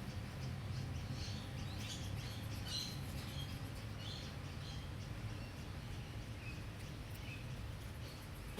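Small birds chirping in bushland: short, high chirps scattered through, thickest in the first half, over a steady low rumble.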